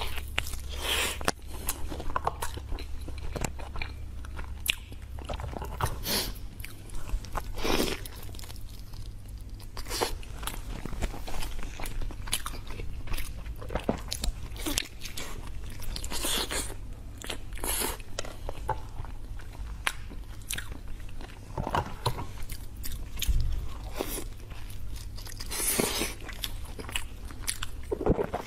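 Close-miked eating: a person biting into and chewing soft braised meat, with many short mouth clicks and bites throughout, over a low steady hum.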